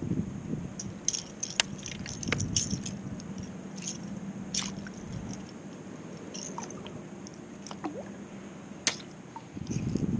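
Scattered sharp clicks and taps of a fishing rod and tackle being handled aboard a plastic sit-on-top kayak, with a cluster about two seconds in and single clicks later, over a low steady hum.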